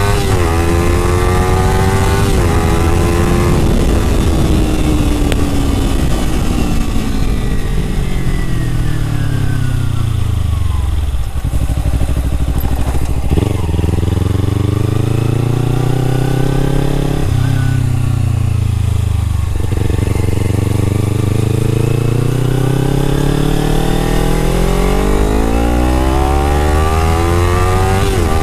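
Kawasaki sport bike engine on the move. Its note falls for the first ten seconds or so, then steps up suddenly twice and climbs steadily toward the end as the bike speeds up, with steady wind and road noise underneath.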